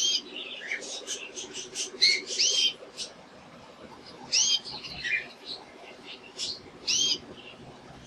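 Male domestic canary calling: a handful of loud chirps that rise and fall in pitch, a couple of seconds apart, with a quick run of short clicking notes early on between them.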